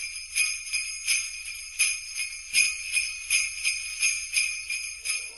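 Jingle bells shaken in a steady rhythm, about three shakes a second, fading slightly near the end.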